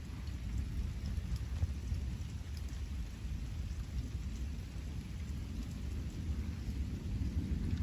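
Thunder rumbling low and steadily, with light rain drizzling as a thunderstorm dies down.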